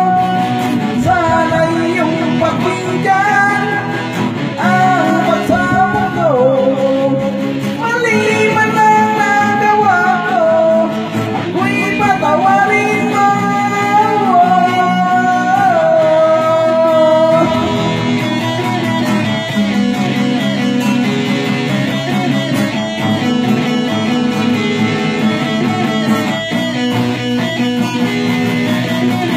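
A man singing with two electric guitars playing along, in a loud home jam. The sung melody stops a little over halfway through and the guitars carry on alone.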